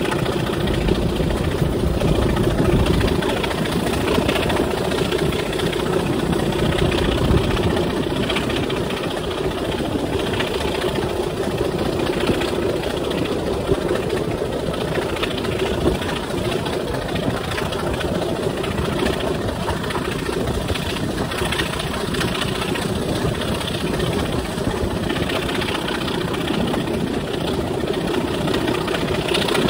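Class 25 diesel locomotive's Sulzer six-cylinder engine running steadily at the head of a moving train, heard from a carriage window, mixed with the wheels running on the track.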